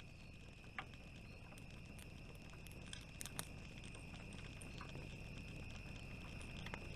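Campfire burning quietly, with a few faint crackles and pops, over a steady high-pitched tone.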